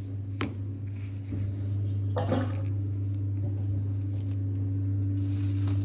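A steady low hum that grows a little louder about a second in. A sharp click comes near the start, and brief rustling and handling noise follows about two seconds in.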